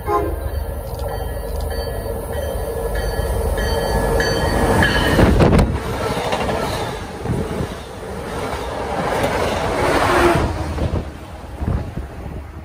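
MBTA commuter rail train running through the station at speed, a rush of wheels on rail and moving air. It builds to its loudest about five seconds in, stays loud as the coaches go by with a second peak near ten seconds, then falls away. High, steady ringing tones sound over the approach during the first few seconds.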